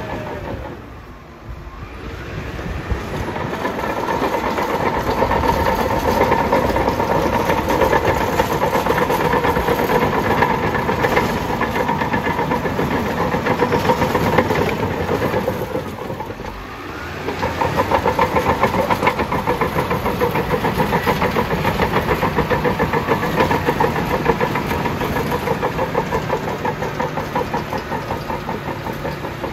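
Bulldozer's diesel engine running under load. The engine note sags and the level drops twice, about a second in and again past the halfway point, each time climbing back up.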